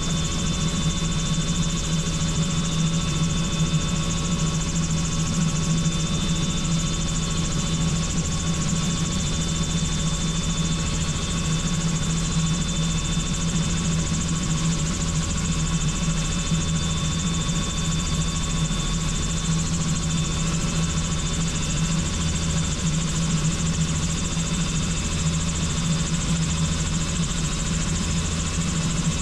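Helicopter turbine and rotor running steadily, a constant drone with a thin high whine held throughout.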